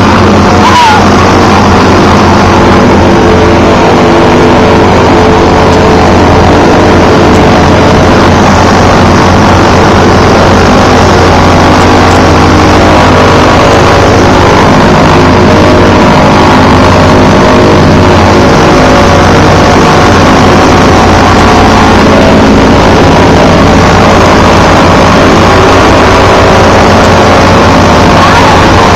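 Pratt & Whitney R-1340 nine-cylinder radial engine of a North American T-6 Texan running on the ground, loud and steady, as the aircraft taxis.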